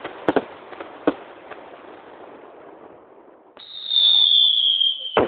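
Fireworks display: a few sharp bangs in the first second, then a loud high whistle from a whistling firework, dropping slightly in pitch for about a second and a half and cutting off suddenly.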